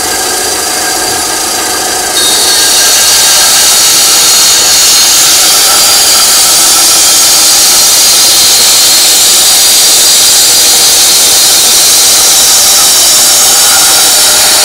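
TOTAL benchtop band saw running. About two seconds in, its blade enters a wooden block fed along the fence, and a louder, steady cutting noise carries on as the board is resawn into a thinner slice.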